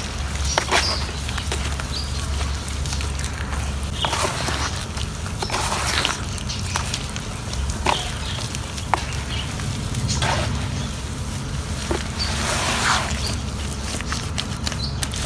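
Huge chunks of pure cement crumbling in water: irregular crackles and short crunching bursts, with a steady low hum underneath.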